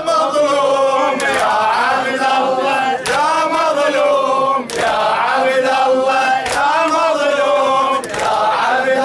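A group of men chanting a Shia latmiya mourning lament in unison, with a sharp collective chest-beating strike about every second and a half to two seconds.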